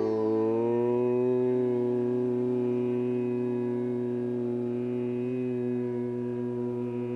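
A single long, low drone held steadily at one pitch, easing off slightly in level.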